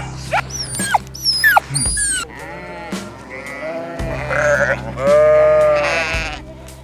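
Sheep bleating: several wavering bleats, the loudest and longest about five seconds in, over background music with a steady bass. In the first two seconds there is a quick run of short, high calls that fall in pitch.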